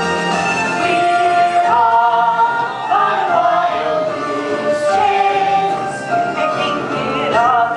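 Voices singing a musical-theatre number, several voices together on long held notes.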